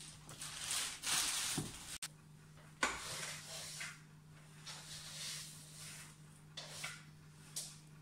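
Chinchillas rustling through hay and wood-shaving bedding in a cage, in repeated scratchy bursts, with one sharp knock just before three seconds in, over a faint steady hum.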